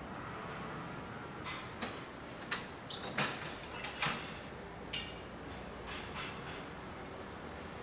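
A run of sharp clicks and knocks from door hardware being worked as a cinema's entrance doors are shut and fastened, most of them bunched in the middle few seconds. A steady low street background runs under them.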